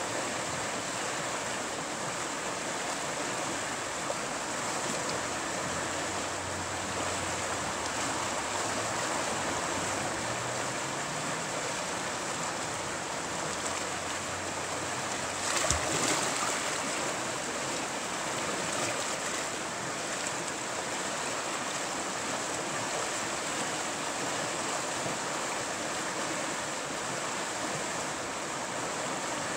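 Shallow river rapid rushing and churning steadily, with one sharp knock about halfway through.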